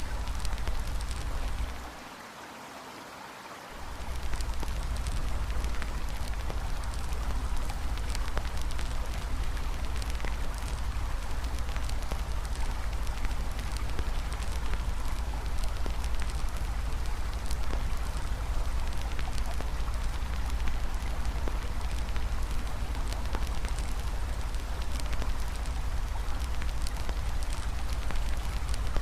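Campfire crackling with frequent small pops over the steady rush of a flowing river and a low rumble. The low rumble and much of the level drop away briefly about two seconds in, then return shortly before four seconds.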